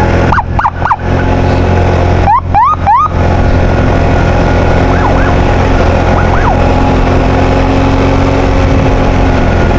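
Ambulance siren giving short rising whoops, three quick ones about half a second in and three more around two and a half seconds, then fainter ones later, over a loud steady vehicle engine drone.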